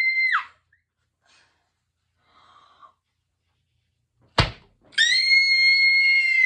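A woman's high-pitched squeal of excitement, held steady on one note for about a second and a half near the end and dropping away as it stops. A shorter squeal falls away at the very start, and a single sharp thunk comes about four seconds in.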